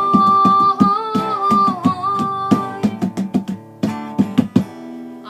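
Acoustic guitar strummed in a steady rhythm, with a woman's voice holding the last sung note for about two and a half seconds before the guitar carries on alone.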